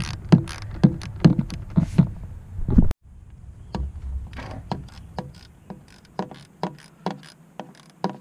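Socket ratchet worked in short back-and-forth strokes, clicking about twice a second as it undoes a bolt. The sound drops out abruptly about three seconds in, then the clicking resumes less evenly.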